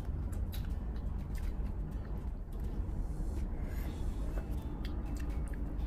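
Close-up eating sounds: a person sucking and chewing on crab pieces in sauce, with many small wet clicks and smacks scattered irregularly. A steady low hum sits underneath throughout.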